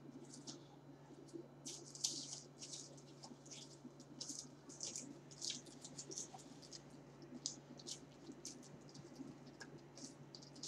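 Faint, irregular clicks and crackles of eating at a table: chewing and the handling of a paper-wrapped burrito and a drink. A low steady hum runs underneath.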